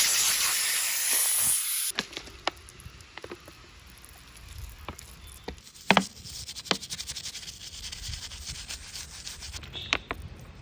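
A loud hiss for about the first two seconds that stops abruptly, then a stiff brush scrubbing grime off a Toyota 1UZ V8 engine, with scattered sharp taps of the brush against metal parts.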